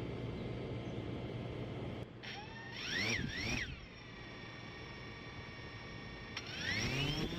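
A steady hiss, then DJI quadcopter drone motors spinning up: the whine rises in pitch twice in quick succession about two seconds in, settles into a steady whine, then climbs again near the end as the motors throttle up.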